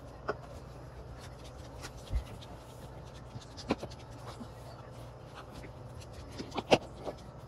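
A baby's hands slapping and squishing mashed potatoes and pushing a bowl across a wooden floor: scattered soft taps and scrapes, with the sharpest knock near the end.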